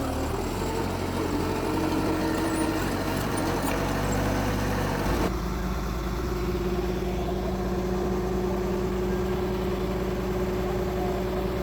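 Heavy diesel engine of earthmoving machinery running steadily. A little over five seconds in, the sound changes abruptly to a different steady engine note.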